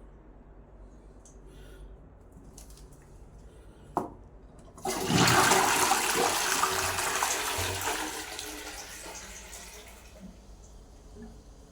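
Toilet flushing: a sharp click about four seconds in, then a sudden loud rush of water that fades away over about five seconds.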